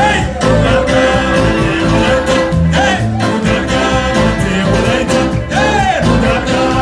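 Live band playing Wolaita dance music: a singer's voice with gliding phrases over electric bass, drums and a held melodic tone, with a steady beat.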